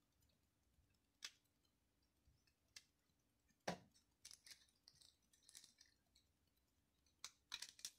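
Near silence broken by a few faint clicks and small plastic knocks as a power cord is handled and fitted into a camera battery charger, the sharpest click a little before the middle.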